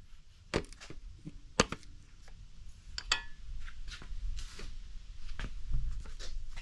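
A few light, separate clicks and knocks from handling in a workshop. The one a little after three seconds has a brief metallic ring.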